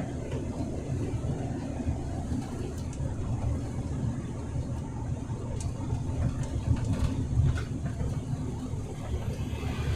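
Truck on the move: a steady low rumble of engine and road noise, with a few faint sharp ticks in the second half.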